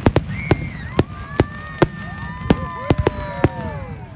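Fireworks going off: a quick, irregular run of about a dozen sharp bangs, with voices calling out among them.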